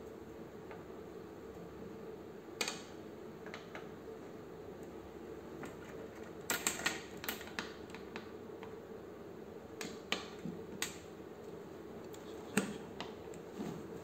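Irregular clicks and taps of banana-plug jumper leads being pushed into the sockets of a telecommunications trainer panel, with a cluster about halfway through and the sharpest click near the end, over a faint steady hum.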